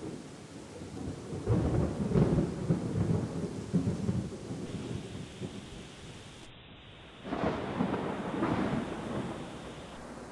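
Thunder rumbling in two long rolls, the first starting about a second and a half in and the second about seven seconds in, over a steady hiss of rain.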